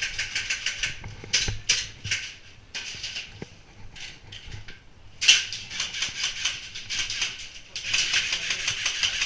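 Airsoft electric rifle firing several bursts of rapid full-auto clicks, the longest about five seconds in and near the end.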